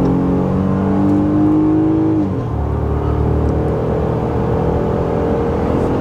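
Ram 1500's 3.6-litre Pentastar V6 under hard acceleration, heard from inside the cabin. The engine note rises steadily, drops with an automatic upshift a little over two seconds in, then climbs again.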